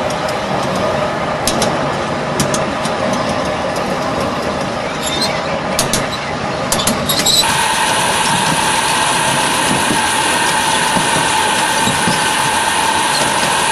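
Ride-on live steam miniature locomotive running along its track, with scattered sharp clicks of the wheels on the rails over the first half. About halfway through the sound changes suddenly to a steadier running noise with a faint steady hum.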